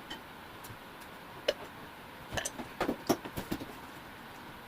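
A person drinking an energy drink: a scatter of short swallowing and mouth sounds over faint hiss, bunched between about one and a half and three and a half seconds in.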